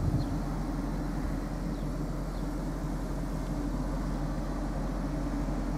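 1997 Jaguar XK8's 4.0-litre V8 idling steadily.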